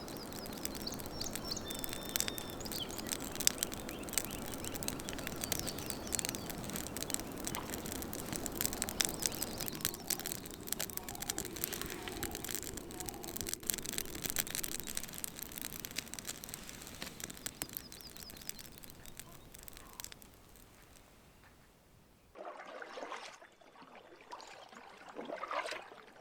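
Spring morning outdoor ambience: birds chirping over a dense, steady background full of small clicks, which fades away about twenty seconds in. A few short splashes of water follow near the end.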